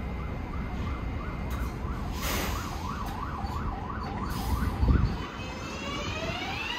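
An emergency-vehicle siren yelping, its pitch sweeping up and down about three times a second, over a steady low rumble. A heavy thump comes about five seconds in. Near the end a rising electric whine begins, from a subway train's motors.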